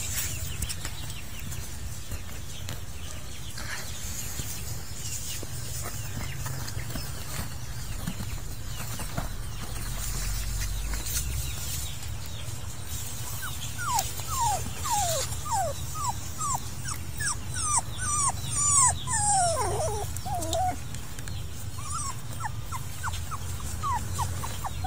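Puppies whimpering: a run of short, falling squeals, several a second, starting about halfway through and a few more near the end, over a low steady rumble.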